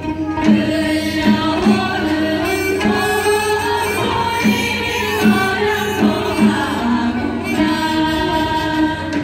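A large group of voices singing a song together, accompanied by janggu hourglass drums.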